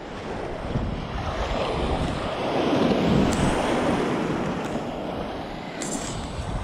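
Baltic Sea surf washing onto the shore, swelling to a peak about three seconds in, with wind buffeting the microphone.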